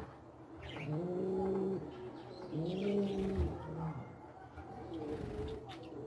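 A pigeon cooing in long, low, arching notes: two clear coos, then a fainter one near the end. Small birds chirp faintly over it.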